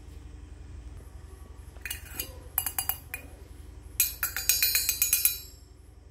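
Miniature stainless-steel toy pot and its perforated steel lid clinking together as they are handled: a few light clinks about two seconds in, then a quick rattle of ringing clinks for over a second.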